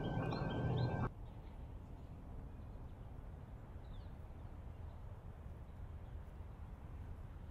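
A loud steady hum cuts off suddenly about a second in. It leaves a quiet outdoor background of low rumble, with a faint bird chirp near the middle.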